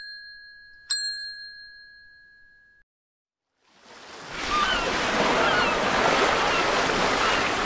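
A bright ding about a second in, ringing out over a couple of seconds; after a short silence, ocean surf washes steadily from about four seconds in, with short chirping bird calls over it.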